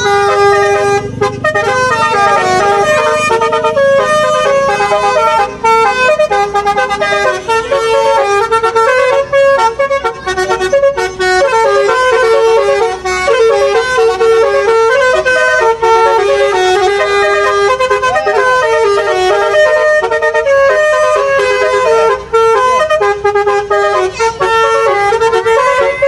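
Bus 'telolet' musical horn of the Basuri type playing a long melody of quick stepping notes without a break.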